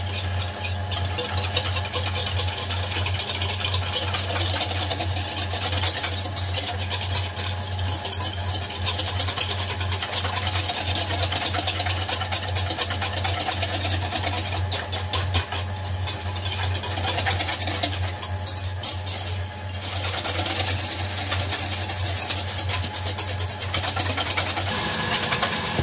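Electric mixer motor running steadily, beating egg whites stiff, while a wire whisk scrapes and beats a batter of egg yolks, sugar and milk in a stainless steel bowl.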